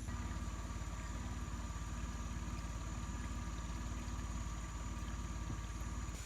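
Small outboard motor on a dinghy running steadily at low speed, its fast even firing pulses under a steady high-pitched whine.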